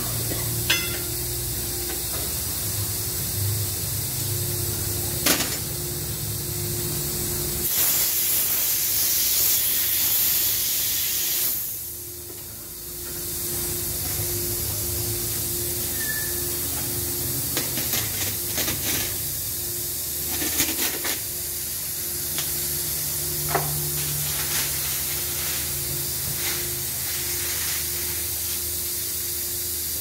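Tyre-changing machine work: a steady hiss and low hum throughout, with scattered metallic clicks and knocks as a steel wheel and tyre are handled on the machine. About eight seconds in, a louder hiss lasts some three seconds.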